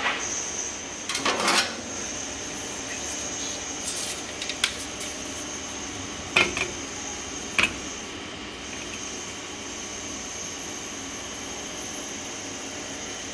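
Several sharp metallic clinks and knocks in the first eight seconds, the loudest a cluster just over a second in, from sheet-steel car-body parts being handled. Under them runs a steady hiss with a thin high whine.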